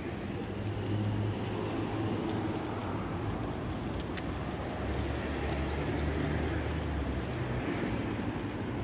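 City street traffic: cars driving past with a steady rush of tyre and engine noise. Low engine hums swell about a second in and again from about five to seven seconds, as vehicles pass close by.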